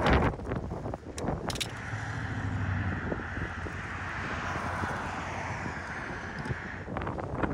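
Strong wind blowing in a steady roar over open ground, with a couple of sharp clicks about a second in.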